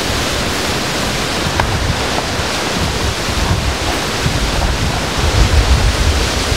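Hurricane winds blowing hard with surf pounding on the beach, a steady loud roar with heavy wind buffeting on the microphone that grows stronger near the end.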